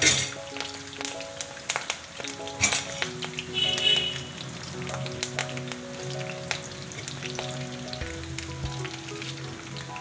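Tempering frying in hot oil in a kadai: mustard seeds, urad dal, cumin, curry leaves and green chillies sizzle with sharp pops and crackles as sun-dried buttermilk chillies (challa mirapakayalu) are dropped in. The pops are thickest in the first few seconds, then it settles to a steady sizzle.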